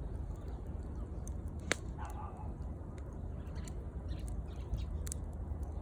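Wood campfire crackling, with scattered small ticks and one sharp pop a little under two seconds in, over a steady low rumble.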